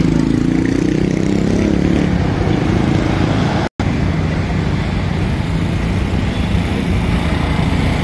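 Diesel engine of a HAMM road roller running close by, with a steady low drone. The sound cuts out for an instant about three and a half seconds in, after which a steady vehicle-engine drone carries on.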